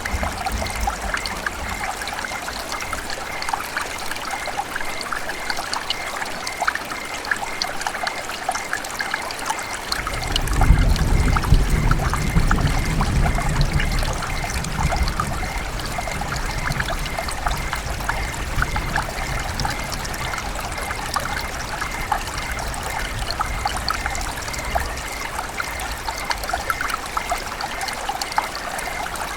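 River water running and trickling in a steady, dense babble. About ten seconds in, a low rumble swells for a few seconds, then fades back under the water.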